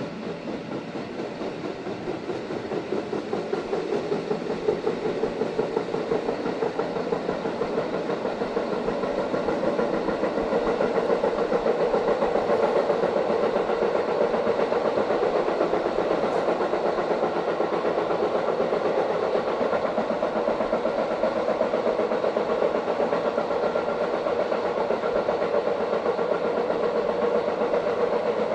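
Running noise inside a Matterhorn Gotthard Bahn metre-gauge train, with a rapid, steady knocking from under the floor: the sign of a flat spot on a wheel. It grows louder over the first ten seconds or so, then holds steady.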